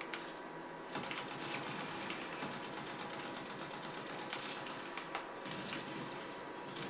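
Typing on a Kzzi K75 gasket-mounted mechanical keyboard: a fast, continuous run of key clicks.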